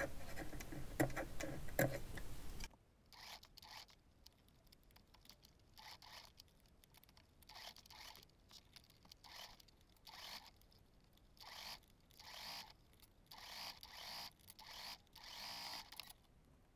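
Scissors making a series of short, faint snips into fabric at uneven intervals: 3 mm clips cut about 1 cm apart into the curved seam allowance so the bias tape can follow the curve.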